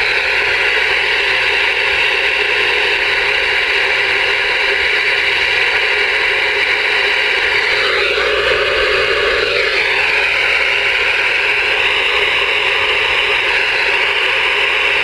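Radio receiver's speaker giving out steady, loud open-squelch static hiss with no signal on the channel. The hiss changes tone for about two seconds around eight seconds in, then settles back.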